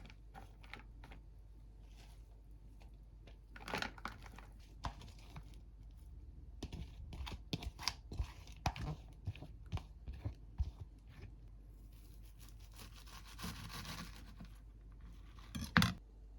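Kitchen food-preparation handling sounds: scattered light clicks and taps, a rustling, tearing stretch a little past the middle, and one sharp knock near the end.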